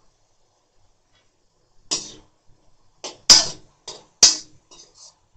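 Slotted metal spoon scraping and knocking against a steel kadai while stirring green beans and onions, in a run of about seven short strokes starting about two seconds in.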